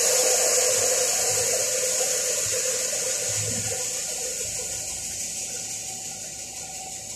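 Pressurised R-410A refrigerant hissing out of an air-conditioner compressor that has burst after a ground fault, dying away steadily as the system empties.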